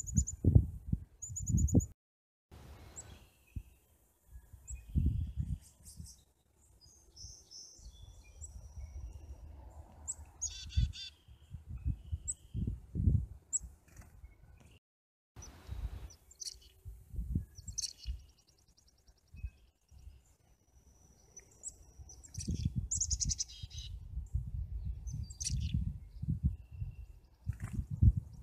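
Black-capped chickadees calling: short high chirps and a few quick runs of buzzy repeated notes, with low rumbling thumps between them. The sound cuts out briefly twice.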